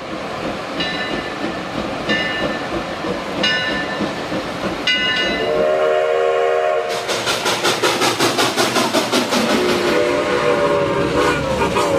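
A train passing: a rumble with short high ringing tones about every second and a half, then the horn sounding a long chord about five seconds in and again near the end, while the wheels clack rapidly over the rail joints from about seven seconds on.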